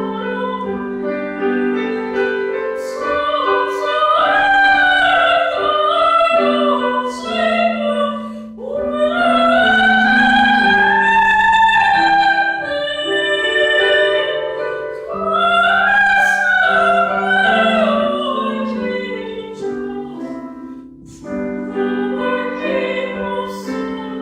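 A soprano singing in classical style, her high notes wavering with vibrato, with piano accompaniment; she holds one long high note about nine seconds in.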